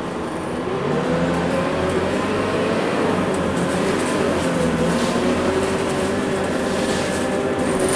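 Scania K230UB bus's five-cylinder diesel engine heard from inside the cabin, pulling and accelerating. The engine note rises, drops back around three to four seconds in as the gearbox shifts, then rises again over road noise.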